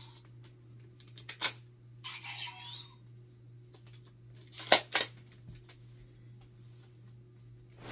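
Hard plastic clicks and snaps from a Kamen Rider toy blaster being worked by hand: two quick clicks about a second and a half in, then two louder snaps near five seconds. A brief electronic chirp from the toy comes around two seconds.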